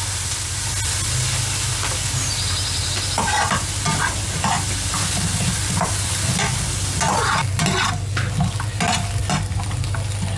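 Sliced onion, chopped green chiles and garlic sizzling in oil in a frying pan, with a metal spoon scraping and knocking against the pan as they are stirred, the knocks coming often from about three seconds in.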